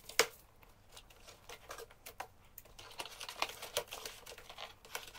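Plastic wrap and packing tape crinkling and rustling as they are pulled off a cardboard box, with scattered small clicks; the sharpest click comes just after the start.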